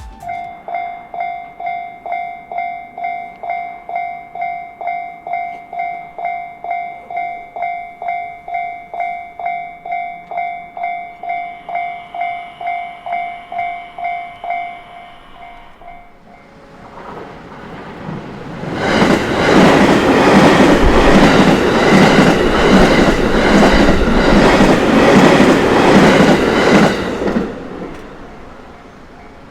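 Japanese level-crossing warning bell ringing in a steady repeating ding, about two strikes a second, for roughly the first half. A JR Takasaki Line train then passes close by, its loud rumble carrying a regular clatter of wheels over the rail joints for about ten seconds before fading away.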